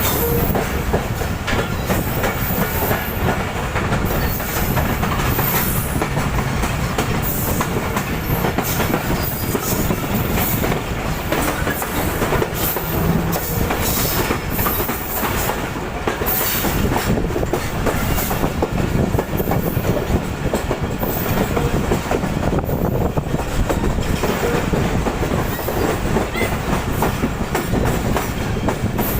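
Passenger train wheels clattering over rail joints and points, a continuous rumble with a rapid, uneven run of clicks and knocks.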